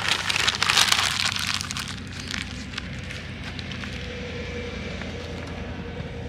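Bratwursts sizzling on a hot grill grate: loud at first, settling after about two seconds into a steadier sizzle with scattered pops.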